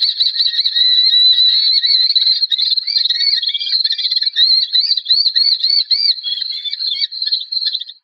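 A bird of prey calling: a shrill, unbroken run of rapid, high-pitched notes, turning into a quick series of short rising-and-falling chirps in the second half.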